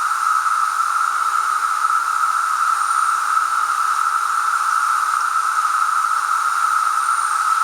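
Chorus of male 17-year periodical cicadas singing their mating call to attract females: a loud, unbroken, steady drone.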